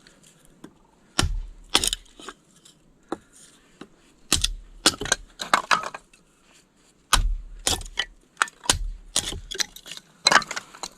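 A series of sharp cracks and snaps at irregular intervals, several with a dull thud underneath, like wood or branches breaking.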